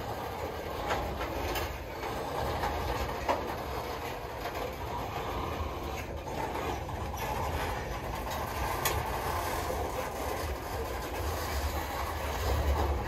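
Freight train of covered hopper cars rolling slowly past: a steady rumble of steel wheels on rail, with scattered sharp clicks and knocks from the wheels and cars.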